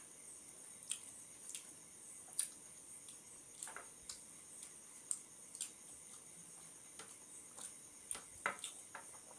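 Eating sounds: scattered irregular clicks and soft wet smacks of chewing and of fingers mixing biryani rice on a plate, over a faint steady high-pitched whine.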